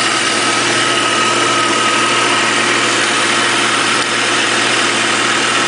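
Vehicle engine idling steadily, heard close up with the hood open, with a thin steady whine that fades out about halfway through.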